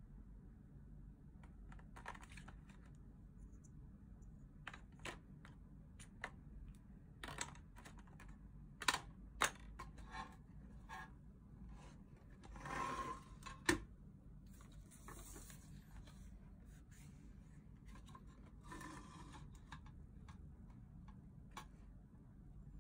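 Small clicks and taps of paintbrushes and plastic water brushes being handled and laid into a metal watercolour tin. About halfway through there is a longer scraping rustle ending in a sharp knock, followed later by a few brief rustles.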